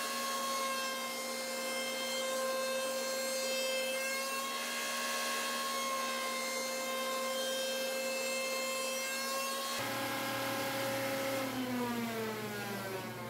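Table-mounted router with a 2-inch diameter profiling bit running with a steady high whine while it cuts the edge profile on a wooden panel. Near the end the whine falls steadily in pitch as the router spins down.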